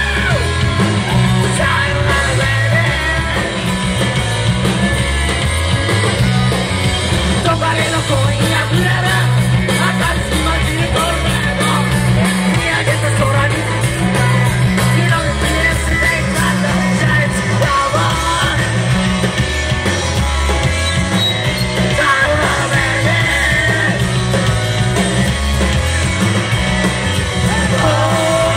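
Live rock band playing loud and without a break: drum kit and electric guitar with a singer's voice over them, and a heavy, pulsing bass underneath.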